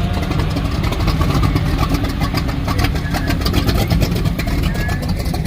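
A classic car's engine running close by, a steady deep engine sound with a quick even pulsing from the exhaust.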